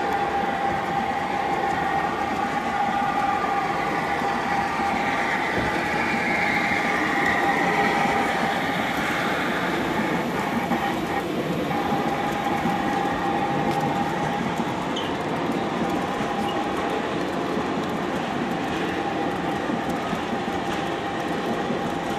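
HO scale model train running steadily along the track: a continuous rolling rumble of wheels on rails with a steady hum, swelling slightly in the middle.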